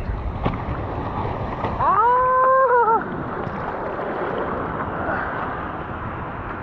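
Rushing water and wind noise, steady throughout, with one drawn-out, rising cry of about a second around two seconds in.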